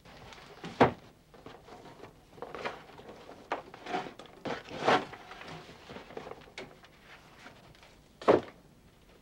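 Knocks and thuds of a box being handled, set down and having its lid opened. There is a sharp knock about a second in, a cluster of clattering knocks through the middle, and another sharp knock near the end.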